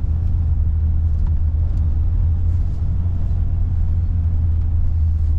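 Steady low rumble of a truck driving, heard from inside the cab.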